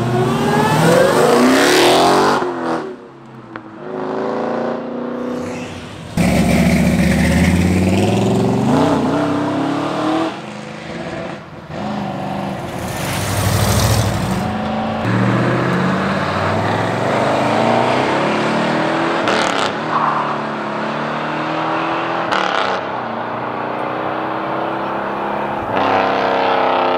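Cars leaving one after another with engines revving and accelerating hard, each run rising in pitch as it pulls away, the sound changing abruptly several times between cars. It opens with a Dodge Challenger accelerating out onto the road.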